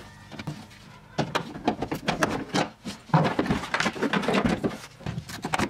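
Plastic interior trim panels of a Mustang being handled and pulled free inside the car: a run of irregular clicks, knocks and rustles as the panel and its clips shift.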